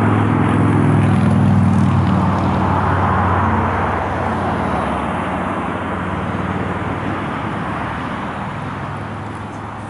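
Honda Jazz hatchback's engine running at low speed as the car drives slowly across a car park. The engine is loudest in the first few seconds and fades gradually as the car slows to pull up.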